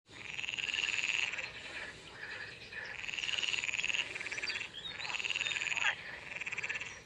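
Green water frog calling, its vocal sacs puffing out: three croaking bouts of about a second each, each one a fast rattling run of pulses.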